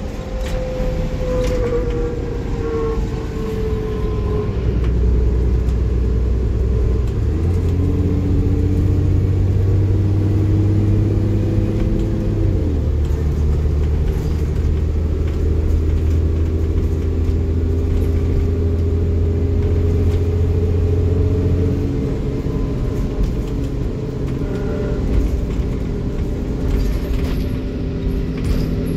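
Diesel bus engine running under way, its note stepping up about seven seconds in, dropping at a gear change around twelve seconds, holding steady, then easing off about twenty-two seconds in. A faint whine falls in pitch over the first few seconds.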